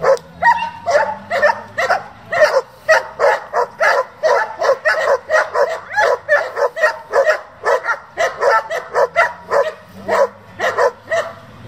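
German Shepherd Dog barking rapidly and repeatedly, about three barks a second without pause. This is the dog's aggressive barking during protection work, driving at a helper's bite pillow.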